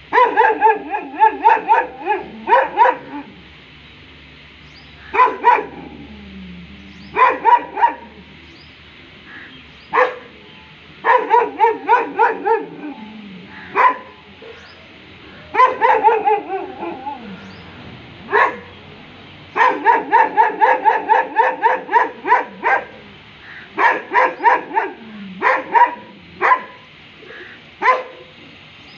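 A black-and-tan shepherd-type dog barking in repeated volleys of several quick barks, with pauses of a second or two between volleys.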